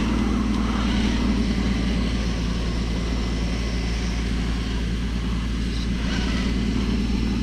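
Steady low drone of a radio-controlled crawler truck's motor and drivetrain running without letup.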